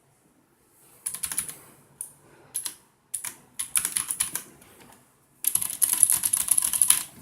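Typing on an IKBC F108 mechanical keyboard with clicky Cherry MX Blue switches, fitted with soft rubber O-rings that damp the bottoming out and leave the switch clicks more pronounced. The keystrokes come in bursts with pauses between them; the fastest and loudest run comes about two thirds of the way through.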